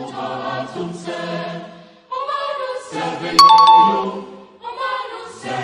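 Background music of a choir singing held notes in phrases, with a bright chime sound effect about three and a half seconds in, the loudest moment.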